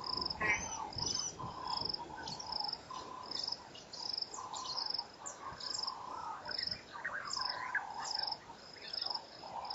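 Chirping insects: a short, high trill repeats evenly, about every two-thirds of a second, over a lower chorus of wavering animal calls.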